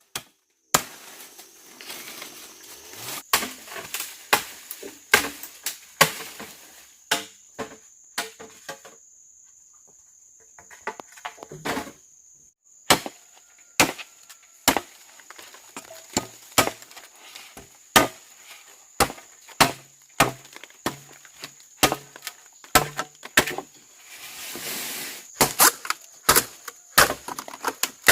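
Wood being chopped by hand with a blade: sharp, irregular strikes about once a second, with a pause of a few seconds near the middle.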